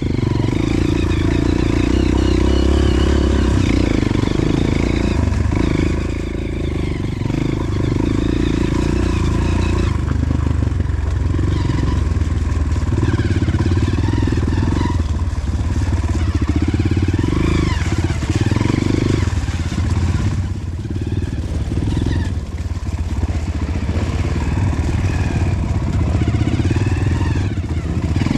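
Honda CRF150L trail bike's single-cylinder four-stroke engine running under way, the throttle opening and easing off as it rides, with a few brief dips in level.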